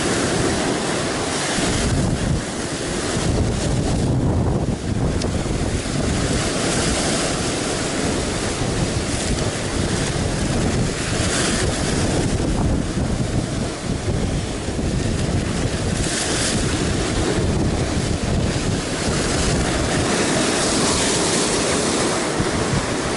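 Heavy surf breaking and churning against rocks just below, swelling and easing every few seconds as the waves come in, with wind buffeting the microphone.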